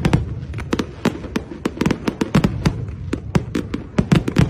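Fireworks display: aerial shells bursting in a rapid, irregular barrage of sharp bangs, several a second.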